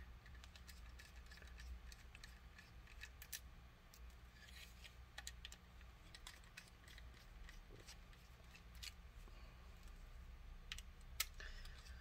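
Faint, scattered small clicks and ticks from a precision screwdriver working small screws out of a laptop hard drive's metal mounting caddy, with one sharper click near the end, over a low steady hum.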